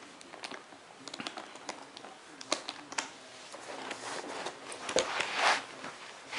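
Hands handling a Kangoo rebound shoe: scattered light clicks and taps from its plastic buckles and shell, then louder rubbing and rustling near the end.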